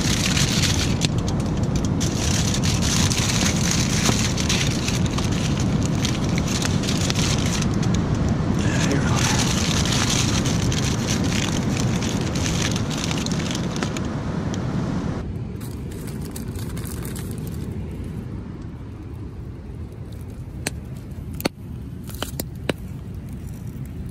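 Aluminium foil crinkling as it is folded and crimped into a packet, over a steady low rumble. About fifteen seconds in the crinkling stops abruptly, and a campfire crackles with a few sharp pops near the end.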